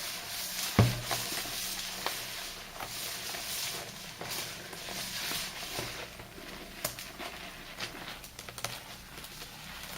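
Thick soap lather and sea-salt paste being worked by hand, giving a wet, crackling, squishing texture with scattered small clicks and one louder thump about a second in.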